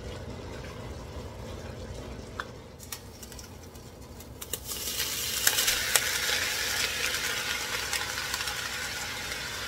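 Ground beef sizzling in a hot, heavy stovetop pot, the sizzle starting loudly about halfway through, with a few knocks of a utensil against the pot. A steady low hum from the range-hood vent fan runs underneath.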